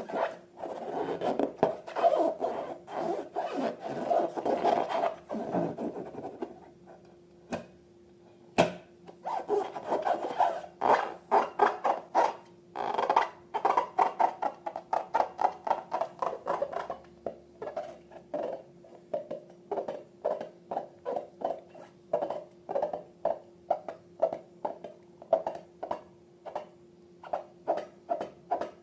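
Slime being worked by hand: dense rubbing and squishing for the first few seconds, then after a short pause a long run of separate presses, about two a second.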